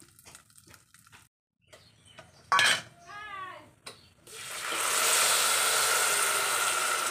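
Cold milk poured into a hot pot of roasted vermicelli, sizzling and hissing loudly from a little past four seconds in while a spatula stirs it. Before that, light tapping of a wooden spatula stirring the dry roasting vermicelli, and a sharp knock about two and a half seconds in.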